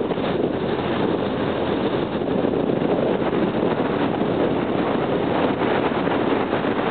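Steady rush of wind buffeting the microphone, mixed with the road noise of a moving vehicle.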